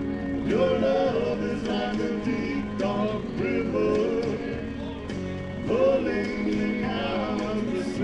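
A man singing karaoke over a recorded backing track. Sung phrases come in about half a second in and again near six seconds.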